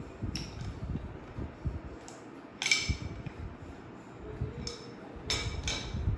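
Metal clinks from handling a brass tap spindle and an adjustable spanner: a few sharp clinks with a brief ring, the loudest about two and a half seconds in and a quick cluster near the end.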